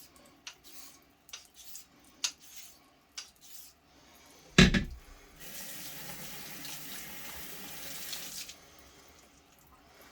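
Light scattered clicks of the razor and stone being handled, a single loud knock, then water running steadily for about three seconds and stopping, at a water-stone honing setup.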